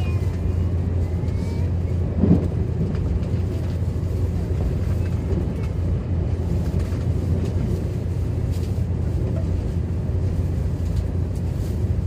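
Steady low rumble of a JR 383 series limited express electric train running, heard from inside a passenger car, with one brief louder sound about two seconds in.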